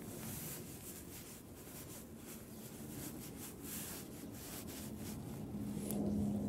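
A hand stroking a cat's fur, soft rubbing strokes about two or three a second. Near the end a low steady hum comes in and is the loudest sound.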